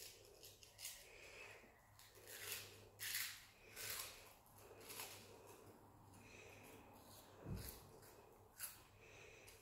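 Faint crunching as a child bites and chews a crispy seaweed corn bar, coming in a handful of short, irregular crackly bursts, with a soft low bump about three-quarters of the way through.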